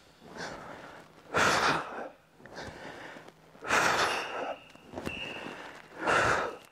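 A person breathing out hard in rhythm with core exercise reps: three strong exhalations about two and a half seconds apart, with quieter breaths in between.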